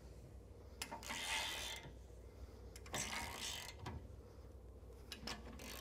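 Ratcheting torque wrench on a deep-well socket tightening a hitch coupler bolt, its ratchet clicking in two spells of strokes about a second and about three seconds in, with a few single ticks. The bolt is being brought up to 30 foot-pounds.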